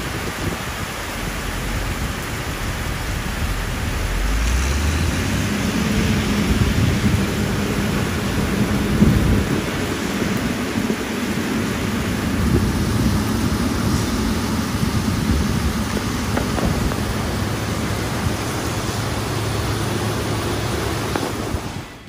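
Heavy rain pouring steadily onto paving and grass, with a low rumble underneath.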